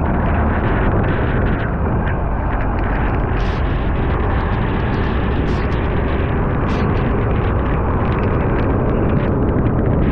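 Heavy wind buffeting a bumper-mounted microphone over the steady rumble of a fire engine's diesel and its tyres on a wet highway, with a few brief ticks scattered through.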